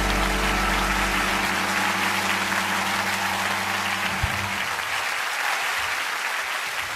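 Audience applauding as the song's last held chord dies away, the music gone about halfway through. A single low thump a little after four seconds in.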